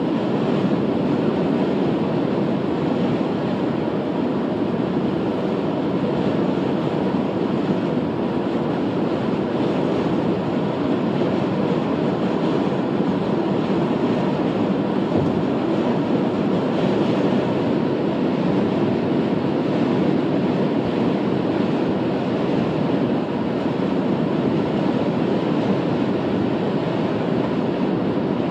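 Steady road noise inside a moving car's cabin: tyres rolling on a snow-swept highway along with the engine, an even rushing hum that does not change.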